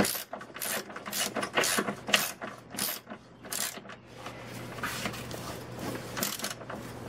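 Hand ratchet with a 19 mm socket clicking in repeated, uneven strokes as a fine-thread subframe bolt is run up snug by hand through a subframe collar.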